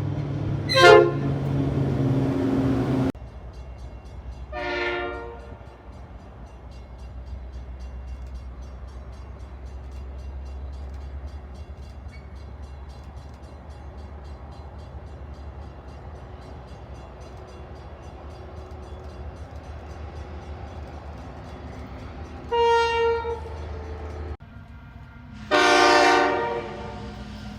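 Four train horn blasts, heard across separate clips: a short loud one about a second in, another about five seconds in, then two near the end, the last the longest. Between the blasts there is a low, steady rumble from the train.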